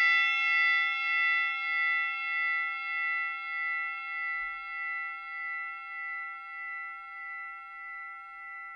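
A struck metal bell ringing out after a single strike, its several tones fading slowly with a steady wavering beat, a little under two pulses a second.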